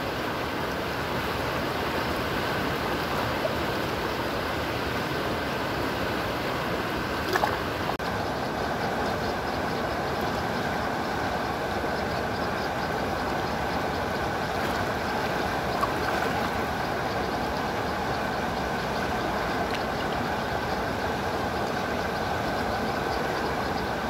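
Shallow river water rushing steadily over rapids and rocks, an even unbroken rush, with a short knock about seven seconds in.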